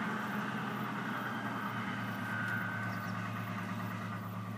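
ÖBB class 2043 diesel-hydraulic locomotive's engine running with a steady low hum, slowly fading as the locomotive pulls away.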